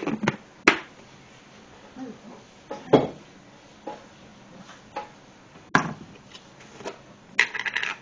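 Kitchen utensils knocking and clicking against a stainless steel mixing bowl: measuring cups and spoons handled and tapped while dry ingredients are measured in. About a dozen irregular knocks, with a quick run of clatters near the end.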